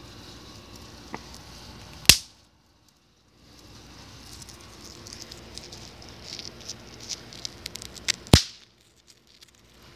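Bang snaps (snap pops) thrown onto concrete, each going off with a single sharp crack: two of them about six seconds apart, with smaller clicks just before the second.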